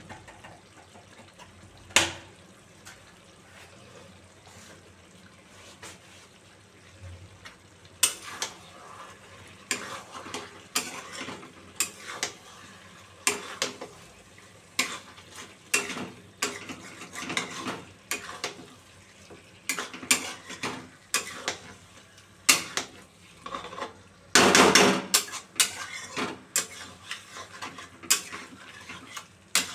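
Flat steel spatula stirring and turning chicken and onions in a metal kadai, scraping and clanking against the pan roughly once a second. There is a single sharp clank about two seconds in, and a longer, louder scrape about three-quarters of the way through.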